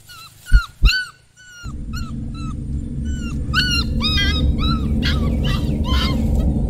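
A puppy whimpering and yipping in a run of short, high cries, a couple to a few a second, with two sharp thumps near the start. A loud low rumble joins from about a second and a half in and runs under the cries.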